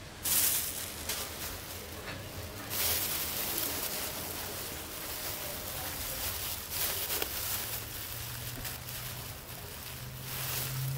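Clear plastic bag crinkling and rustling as it is handled and opened, in several stretches.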